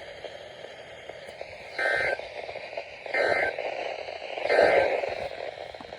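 NOAA Weather Radio EAS end-of-message data bursts closing a severe thunderstorm warning: three short two-tone digital squawks about a second and a half apart, over a steady hiss of radio static.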